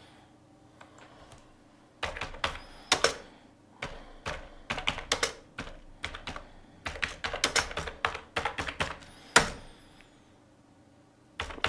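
Typing on a computer keyboard: rapid runs of key clicks with short pauses between words, and one louder key strike near the end.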